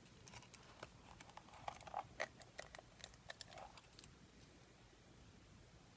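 Faint crackling and small clicks of a small silicone mixing cup being flexed and squeezed as leftover cured resin peels out of it, dying away about four seconds in.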